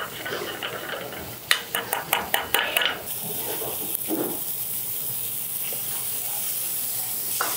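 A metal utensil stirs and scrapes in a sauté pan, with a quick run of sharp clinks against the pan about one and a half seconds in. From about three seconds in, food fries in hot oil with a steady sizzle.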